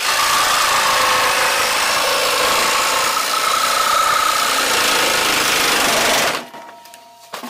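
Old Craftsman corded jigsaw running and cutting half-inch plywood; the board vibrates and chatters because its clamp has come loose. The saw stops abruptly about six seconds in.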